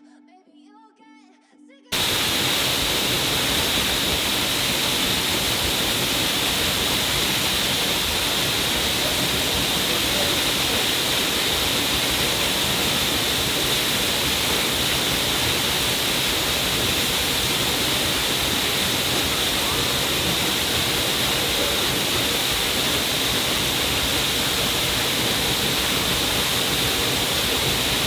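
Faint closing notes of a song for about two seconds, then a loud, perfectly steady static hiss cuts in suddenly and holds without change.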